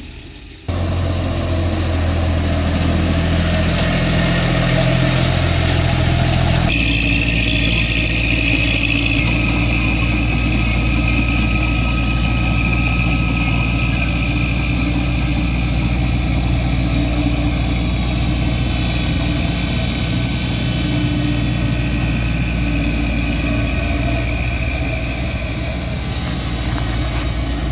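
Heavy diesel engines of a ten-wheel dump truck and a Caterpillar D4E crawler bulldozer running steadily. The sound changes abruptly about a second in and again about seven seconds in.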